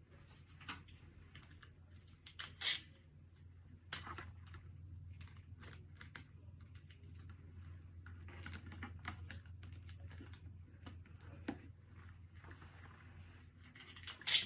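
Hands handling small items and packaging: scattered clicks, taps and crinkles, with a few sharper knocks, over a steady low hum.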